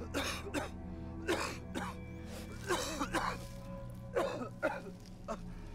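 A man breathing hard in short, ragged gasps and groaning breaths, mostly in pairs, over a low, steady music drone.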